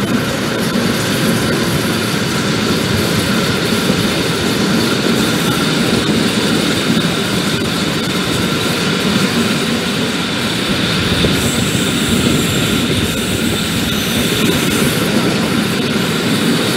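Steady rolling rumble of trains running on the track, with no break, heard as a freight train of covered coil wagons and a pair of electric locomotives goes by.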